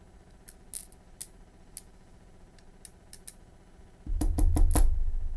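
Light scattered clicks and taps of the desoldering gun's parts being handled and fitted back together, then about four seconds in a louder low handling rumble with a quick run of clicks.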